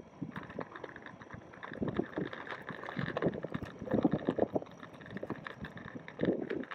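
Dual-motor belt-drive electric longboard being ridden: steady motor and drive noise, with the wheels rumbling and knocking unevenly over the pavement.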